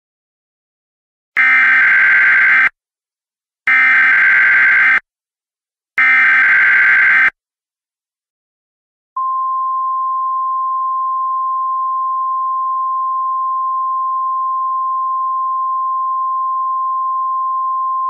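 Emergency Alert System tones for a flood warning: three short equal bursts of warbling data tones, the SAME header, spaced about two seconds apart. They are followed about nine seconds in by a long, steady single-tone attention signal.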